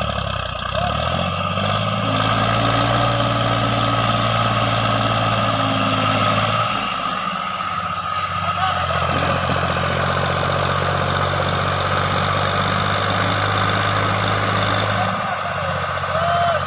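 Farm tractor's diesel engine running hard under heavy load, straining to pull a trolley stacked with eucalyptus logs out of loose sand. Its note changes about seven seconds in and again near the end.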